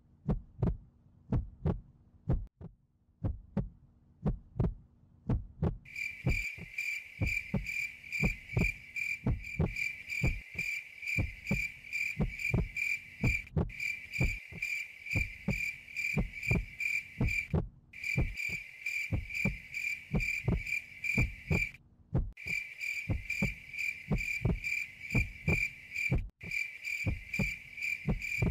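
Heartbeat sound effect: low thumps in pairs, repeating evenly. About six seconds in a steady, rapid chirping of crickets joins it and breaks off briefly a few times, over a faint low hum.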